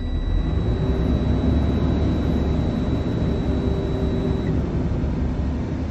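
Air-brake truck's diesel engine running to build air pressure, with the low-air-pressure warning buzzer sounding a steady high tone that cuts off about four and a half seconds in, as the air pressure climbs past about 61 PSI.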